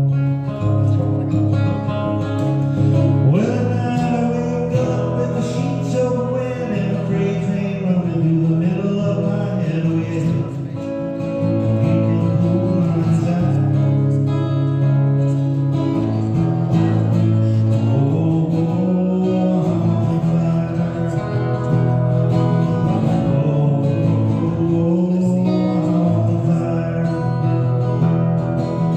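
Solo acoustic guitar strummed steadily while a man sings along into a microphone, a live folk-style song performance.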